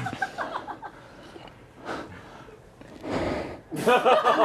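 Performers' breath and vocal noises: short voiced sounds at the start, a loud breathy gasp about three seconds in, then voices rising again near the end.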